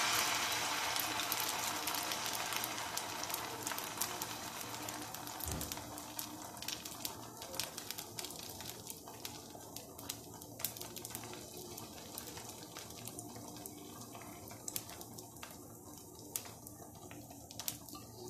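Batter sizzling in hot oil in a non-stick frying pan as it is ladled in and spread; the hiss is loudest at first and dies away gradually, with scattered small crackles.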